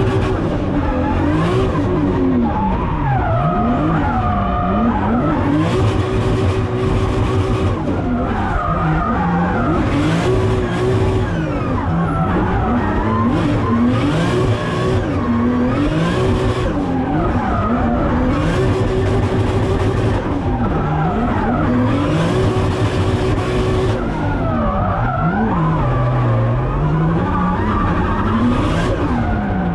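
Toyota Supra MK4's turbocharged 2JZ-GTE straight-six heard from inside the cabin, its revs rising and falling again and again and held high for a second or two at a time, with bursts of tyre squeal at the high points as the car drifts.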